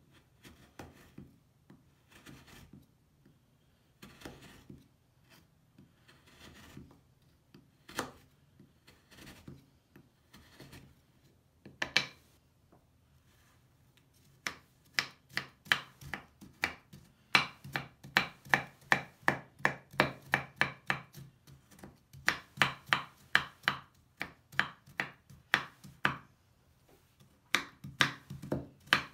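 Kitchen knife cutting a crumbly Lush bubble bar on a wooden cutting board: soft crunching slices at first, then from about halfway on rapid chopping, the blade striking the board about three times a second in runs with short pauses.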